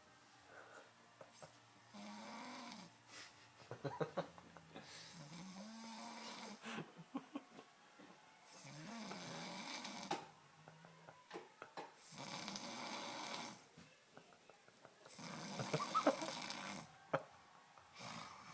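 A person snoring, with rasping breaths coming roughly every two to three seconds. Some breaths carry a low wavering tone, and there are crackling clicks in between.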